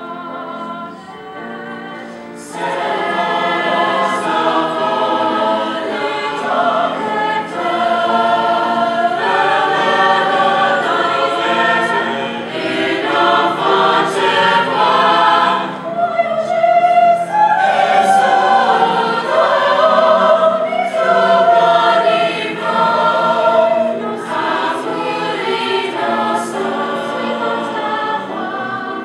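High school mixed-voice vocal ensemble singing in harmony, the voices growing louder about two and a half seconds in.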